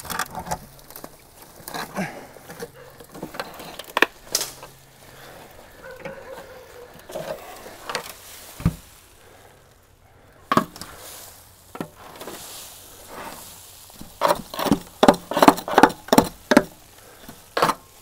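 Hand trowel digging and scraping through leaf litter and root-matted dirt around a rusted sheet-metal car panel, with scattered knocks and clunks as the panel is shifted. Near the end comes a quick run of scrapes and scoops.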